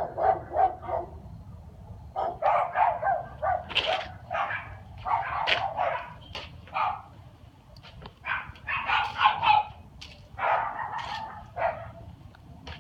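A dog barking in rapid runs of short barks, several to the second, in about five bursts with short pauses between them. A steady low hum runs underneath.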